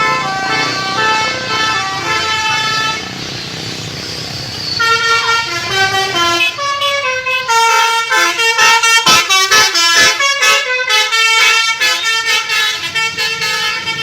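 Indonesian bus 'telolet' multi-tone Basuri air horn playing a melody of stepped notes. The notes break off for a couple of seconds of traffic noise about three seconds in, then resume, turning short and choppy in the middle.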